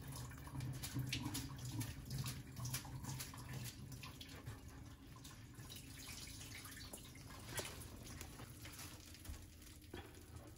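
Faint wet squelching and dripping as washed gamtae seaweed is pressed and squeezed by hand in a stainless steel strainer, the wrung-out water trickling and dripping into the bowl below, with scattered small clicks.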